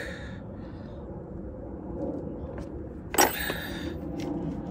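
Steady low rumble of background vehicle noise, with one sharp knock about three seconds in, the loudest moment, as tools are handled at the battery.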